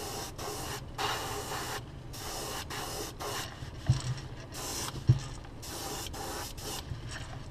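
Airbrush spraying paint in short hissing bursts that stop and start, with two light knocks about four and five seconds in.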